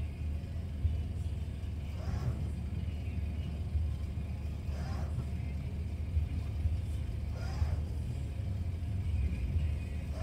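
Nissan Patrol Y62's petrol V8 idling with a steady low rumble, with a few faint squeaks spaced a couple of seconds apart.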